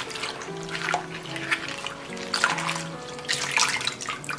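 Water splashing and sloshing in a glass bowl as hands wash bomdong (spring cabbage) leaves, with a tap running into the bowl, in several uneven bursts. Background music plays throughout.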